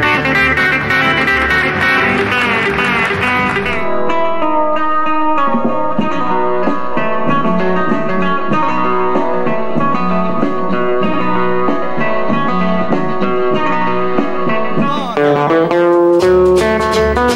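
Country string band playing an instrumental, with banjo and guitars picking fast notes and no singing. About four seconds in, the full sound with bass drops to lighter picked guitar, and the bass comes back near the end.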